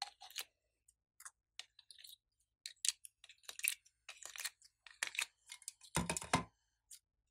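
Scattered sharp clicks and taps of slime pieces being picked out of a clear plastic compartment box, with a louder, fuller burst of handling noise about six seconds in as a block of slime is lifted out.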